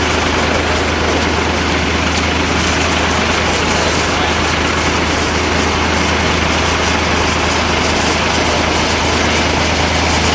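Fire engine's engine running steadily with hoses connected: a constant low hum under a dense even rush of noise.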